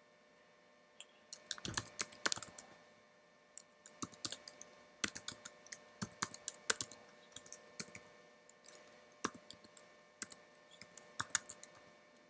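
Typing on a computer keyboard: irregular runs of quick key clicks with short pauses between them, starting about a second in.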